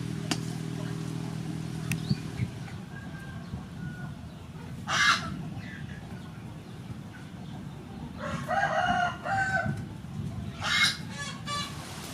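A rooster crowing, one longer crow about eight seconds in, with shorter calls around five and eleven seconds. A low steady hum sounds in the first two seconds.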